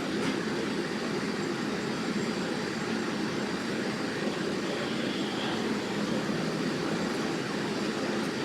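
Steady vehicle noise: an even, unbroken rumble with no sudden sounds.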